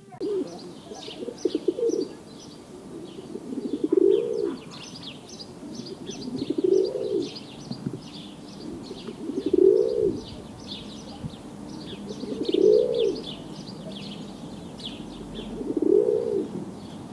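Pigeons cooing, one low rising-and-falling coo about every three seconds, while small birds chirp rapidly and continuously in the background.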